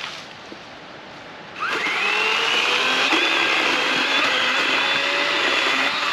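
Master Force 80-volt battery chainsaw spinning up about a second and a half in, running at a steady high whine, then winding down at the end.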